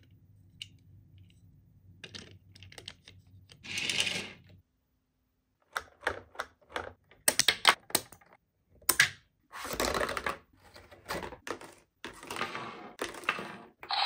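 Hard plastic toy pieces clicking, knocking and scraping as a pirate ship playset and a small toy boat are handled: a run of separate sharp clicks with a few short scrapes between them.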